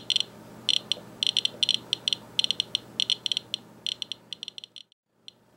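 Radiation Alert Inspector Geiger counter chirping irregularly, each count a short high beep, several a second, at an elevated rate of about 690 counts per minute from radon progeny washed out by rain. A faint steady hum lies underneath, and the sound breaks off for a moment near the end.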